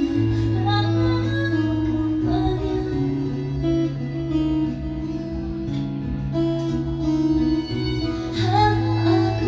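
Live band music: acoustic and electric guitars playing a song over held low notes that change pitch every few seconds.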